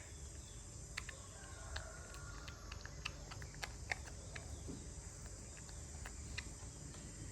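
Scattered faint clicks and small taps at an uneven pace over a steady low rumble.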